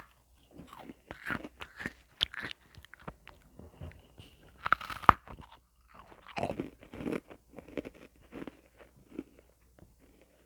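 Irregular crunching and chewing, as of someone biting into and eating something crunchy, in short uneven bursts.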